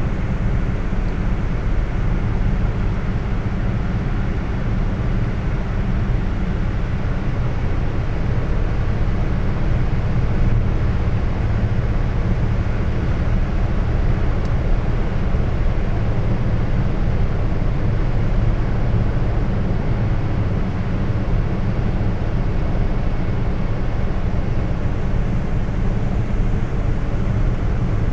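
Steady low rumble of tyres and engine heard inside a car's cabin while it cruises at highway speed, holding an even level throughout.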